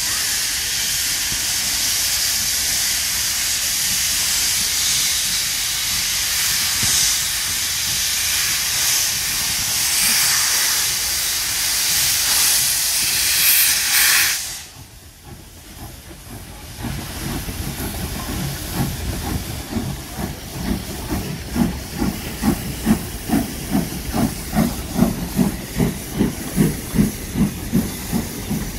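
Steam locomotives hissing loudly as steam jets from their cylinder drain cocks while the train gets under way; the hiss cuts off suddenly about halfway through. After that comes a steam locomotive's slow, even chuffing, about two beats a second.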